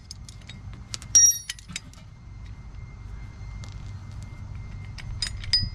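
Steel bearing puller and socket clinking and ringing as they are handled and loosened: one loud ringing clink about a second in, a few light clicks, and two more ringing clinks near the end, over a low steady rumble.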